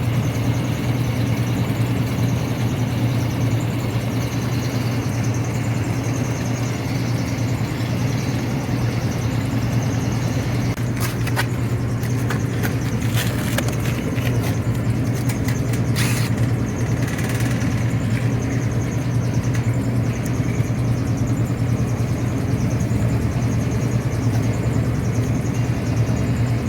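York 3-ton rooftop AC unit running with a steady mechanical hum from its compressor and condenser fan, with a cluster of short sharp clicks about halfway through.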